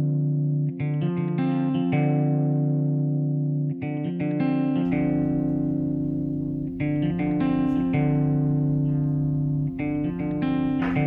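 Background music: chords that ring out and fade away, with a low bass layer coming in about five seconds in.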